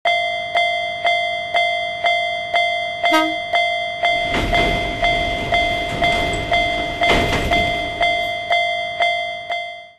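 Japanese railway level-crossing warning bell clanging steadily about twice a second, with a train rushing past from about four to seven and a half seconds in and a short horn toot around three seconds in.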